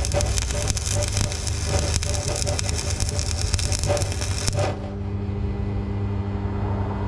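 Stick (arc) welding arc crackling and sputtering, which cuts off suddenly after about four and a half seconds, leaving a steady low hum.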